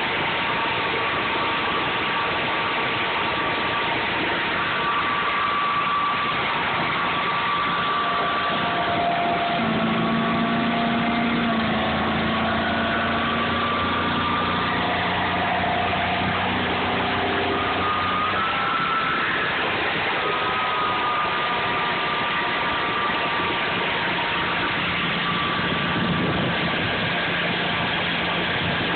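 Air-cooled home standby generator engine running steadily after starting on a simulated utility power failure.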